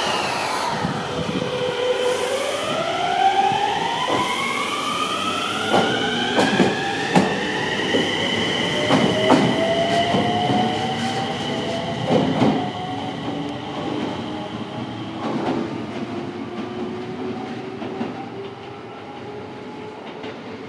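Enshu Railway electric train pulling out and accelerating: its motor whine climbs steadily in pitch, then a second, lower whine climbs more slowly. The wheels clack over rail joints as it goes, and the sound fades near the end.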